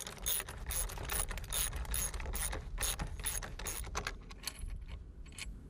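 Socket ratchet wrench clicking rapidly as bolts are tightened, about four to five clicks a second. The clicking stops about four and a half seconds in.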